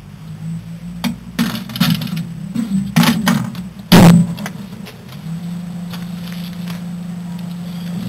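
Clattering and knocks as a microwave oven is loaded and its door shut, with a loud bang about four seconds in. About a second later the oven starts running with a steady low hum.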